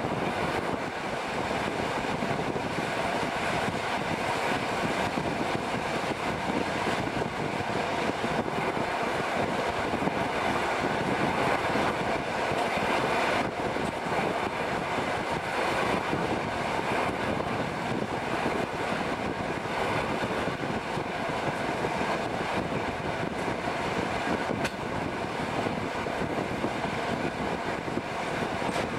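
Passenger train running steadily at speed, heard from an open carriage window: a constant rush of wind and wheel-on-rail noise.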